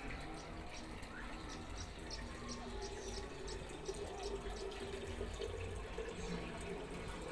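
Water trickling and dripping out of the open drain-filter opening of an LG washing machine as the water left in the drum drains away.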